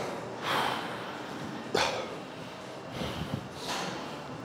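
Three forceful, breathy exhalations from a man straining through heavy barbell rows.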